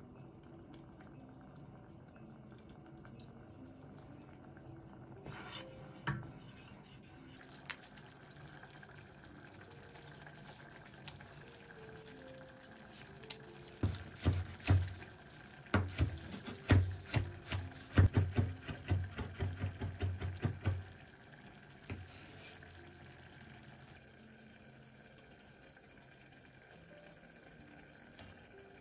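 Kitchen knife chopping basil leaves on a wooden cutting board: a run of quick, knocking chops starting about halfway through and lasting some seven seconds, over soft background music.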